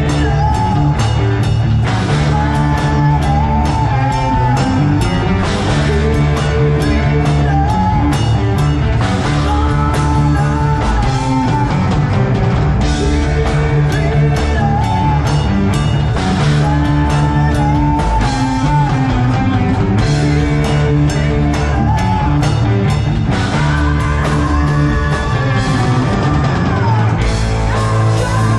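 Rock band playing live: drum kit, electric guitars and bass, with a melodic phrase that recurs every few seconds over a steady beat.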